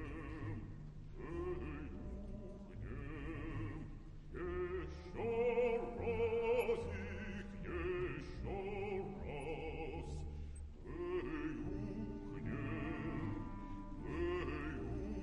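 Podcast intro music: operatic singing with heavy vibrato, in short phrases of a second or two separated by brief breaks, over a steady low accompaniment.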